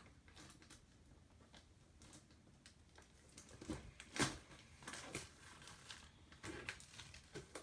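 Faint rustling and light knocks of a cardboard Pokémon Elite Trainer Box and its contents being handled as it is opened, busier in the second half, with the loudest knock about four seconds in.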